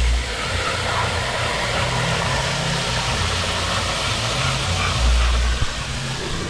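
Neighbours' bass-heavy music, its deep bass notes stepping from pitch to pitch with heavy pulses, over a steady rushing noise.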